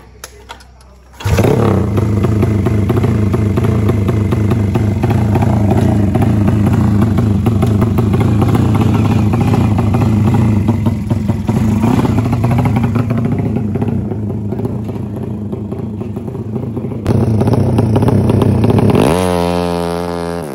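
Tuned drag-racing motorcycle engine catching just over a second in and running loud and uneven at a fast idle with small throttle changes. Near the end it accelerates hard, the pitch climbing steeply, and fades as it pulls away.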